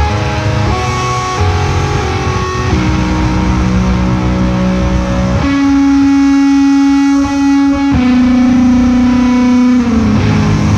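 Slow instrumental music from electric guitar and pedal steel guitar through amplifiers with effects: long held notes that change every second or two. About halfway through a loud, bright note comes in, steps to a new pitch a little later and slides near the end.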